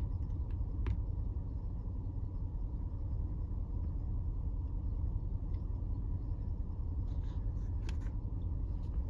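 Steady low rumble of an idling car engine heard from inside the cabin, with a few faint clicks.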